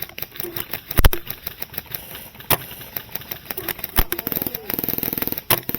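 Airsoft gunfire: a few sharp single cracks, the loudest about a second in, then from about four seconds in a rapid burst of automatic fire, about twenty shots a second, typical of an electric airsoft rifle on full auto.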